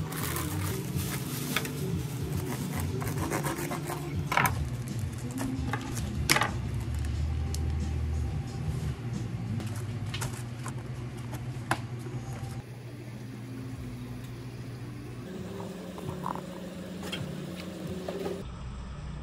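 Paper sandwich wrapper rustling and crinkling as it is folded, with a few sharp clicks, over a low steady background.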